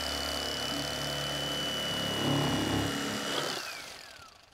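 Electric fillet knife running steadily with a high whine as its blade slices a white bass fillet off the skin. About three and a half seconds in it is switched off, and the whine falls in pitch as the motor winds down.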